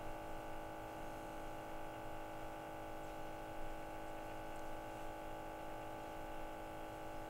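Faint steady hum with several fixed tones: the gas detector's built-in sampling pump running as it draws clean air to clear the sensors after calibration.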